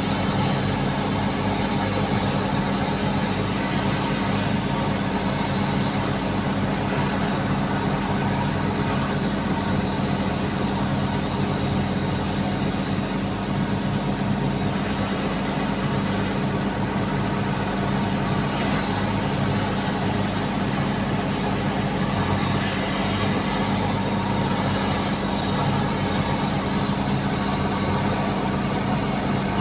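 Bulldozer's diesel engine running at a steady, unchanging speed.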